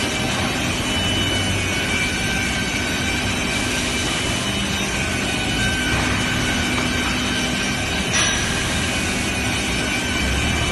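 SK3200 NC panel sizing saw (computer beam saw) running: a steady mechanical hum and whine, with sharp knocks at the start and about eight seconds in.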